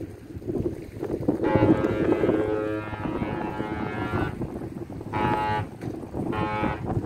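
The lake freighter Frontenac's horn sounding a salute: one long blast and then two short ones, the Great Lakes master's salute. Wind rumbles on the microphone throughout.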